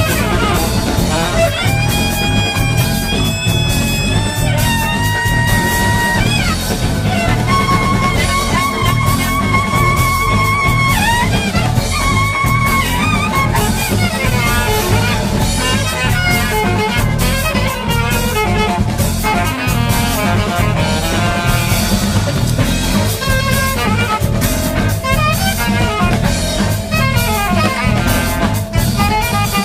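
Instrumental background music: a melody of long held notes, each sliding briefly at its ends, over a steady drum beat. The held notes are clearest in the first half; the second half turns into busier, shorter figures.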